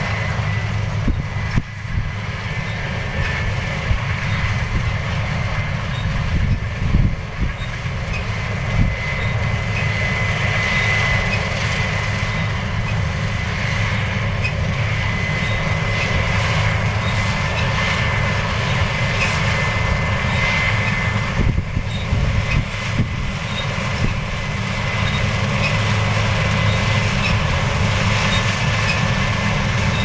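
Case IH 8010 combine harvester working through standing barley: a steady drone of the engine and threshing machinery, with a thin, steady high whine over it.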